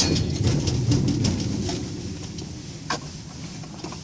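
Gusty wind buffeting the microphone: a low rumble that eases after about two seconds, with scattered small clicks and rustles.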